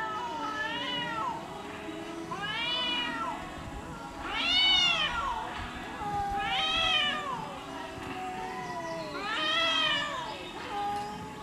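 Two domestic cats in a face-off, yowling at each other: about five long wails that rise and fall in pitch, the loudest about halfway through, with a lower, drawn-out moan that slowly falls through the second half.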